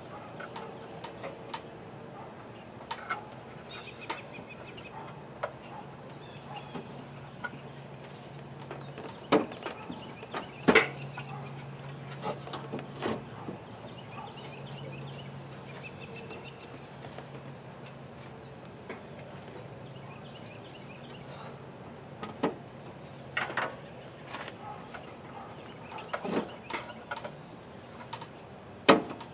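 Scattered clunks and knocks as a replacement radiator is lowered into a Nissan 240SX S13's engine bay and worked into place. A faint low hum comes and goes in the middle stretch.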